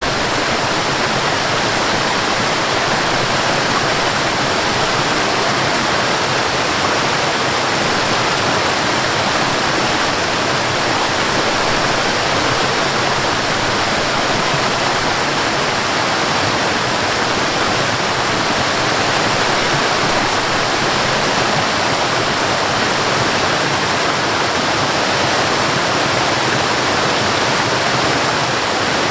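Rushing water, a steady unbroken hiss with no changes.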